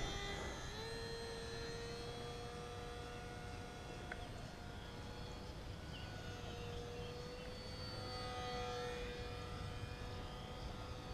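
Small electric motor and propeller of a HobbyZone Sport Cub S RC plane flying some way off: a faint, thin, nearly steady whine that comes in just under a second in and holds, with only slight changes in pitch.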